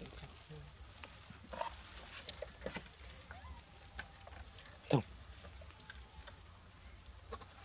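Macaques feeding from a metal tray: scattered clicks and clinks of hands and food, with three short high squeaks and one sharper, louder sound about five seconds in.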